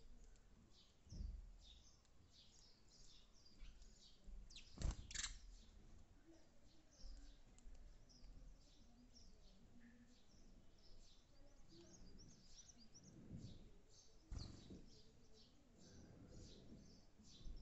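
Faint, rapidly repeated short chirps of sparrows, with a few knocks, the sharpest about five seconds in.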